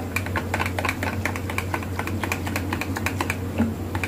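Wire whisk beating yogurt and milk in a plastic bowl: rapid, uneven clicking and tapping of the wires against the bowl, several times a second, over a low steady hum.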